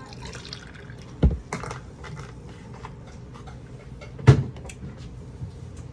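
Eating sounds close to the microphone: a run of small clicks and taps, with two sharp knocks about three seconds apart.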